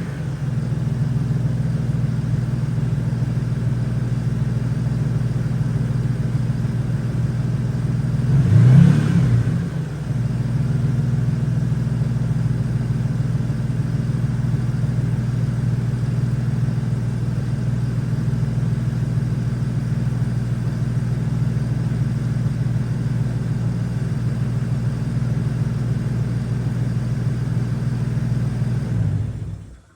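Truck engine idling steadily, revved briefly once about nine seconds in, then shut off near the end.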